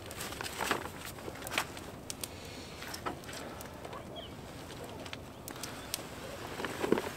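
Quiet outdoor ambience with scattered soft knocks and rustles of a person moving about and handling a folding camp chair, plus one faint short chirp about four seconds in.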